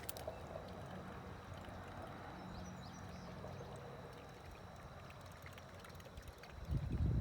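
Faint, steady outdoor hiss at the water's edge. Near the end it gives way to loud, irregular low rumbling, like wind buffeting or handling noise on the microphone.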